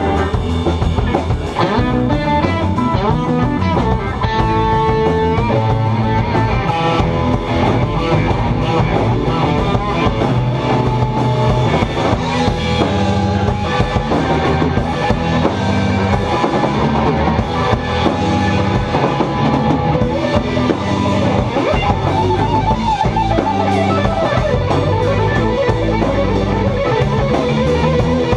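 Live blues-rock band playing: two electric guitars over electric bass and a drum kit.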